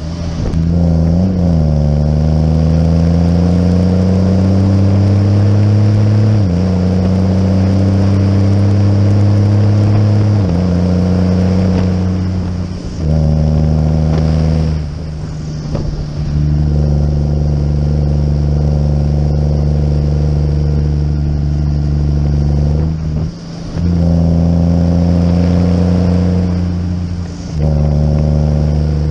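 Tractor engine pulling a muck cart on the road, rising in pitch as it accelerates and stepping down twice in the first ten seconds as it changes gear. It then runs at a steady pitch, with brief drops in power four times.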